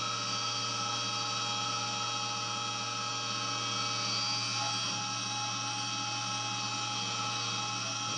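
Syil X7 CNC milling machine cutting a metal block: the spindle runs with a steady high-pitched whine over an even cutting hiss and a low hum, without a break.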